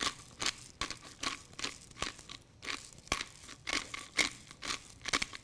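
Hand-twisted pepper mill grinding peppercorns onto a steak: a steady run of short gritty crunches, about three a second, one with each twist of the mill.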